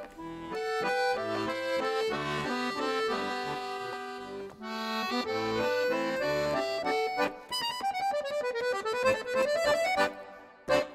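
Instrumental outro music: a quick melody of changing notes over a bass line, with a run of falling notes near the end. The music stops about ten seconds in and is followed by one short sharp hit.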